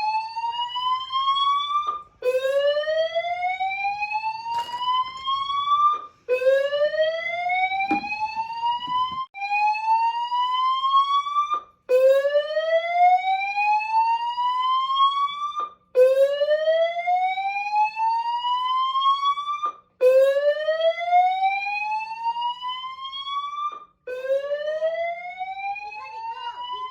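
Building fire alarm sounding a loud slow whoop: a tone sweeps upward over about four seconds, breaks off for a moment and starts again, over and over. The alarm is being tested.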